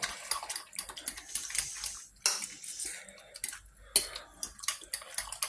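Metal spoon clinking and scraping against a glass bowl while stirring beaten eggs into fried potatoes, onion and green pepper, with two sharper knocks about two and four seconds in.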